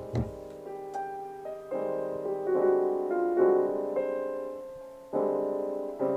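Background piano music, a gentle melody over soft chords, with a new phrase coming in about five seconds in. A soft low thud right at the start.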